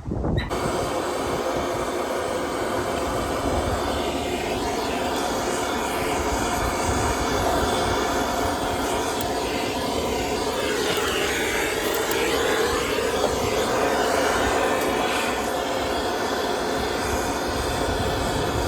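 A motor running steadily, starting abruptly about half a second in.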